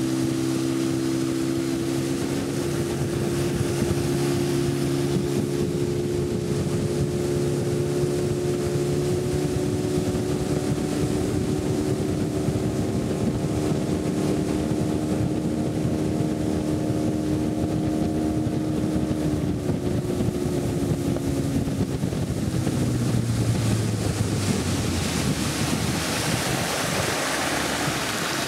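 Small motorboat's engine running steadily, with water rushing past the hull and some wind on the microphone. In the last third the engine note drops in pitch as it slows, and near the end a noisy rush of water and wind grows louder.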